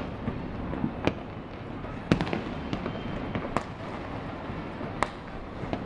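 Distant aerial fireworks going off: several sharp bangs at irregular intervals, the loudest about two seconds in, over a low steady rumble.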